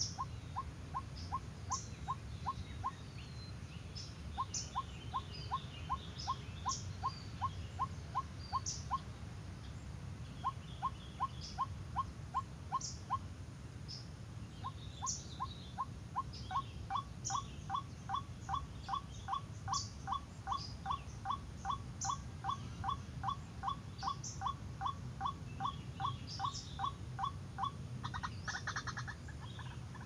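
White-breasted waterhen (ruak-ruak) calling: long runs of short, evenly repeated notes, two to three a second, pausing a few times, with scattered high chirps of small birds above.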